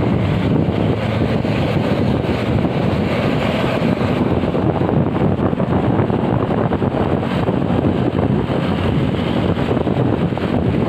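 Steady wind noise on the microphone while riding a motorcycle in traffic, with engine and road noise beneath it.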